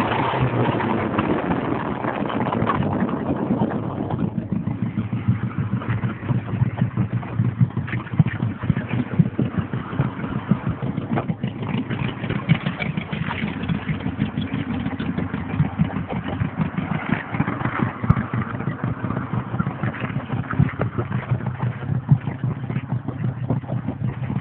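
1987 Mazda 929's 2.2-litre carbureted inline-four running, at first higher and fuller, then settling about four seconds in to an uneven idle with a rapid pulsing exhaust note. The exhaust leaks ahead of the first muffler and there is no catalytic converter.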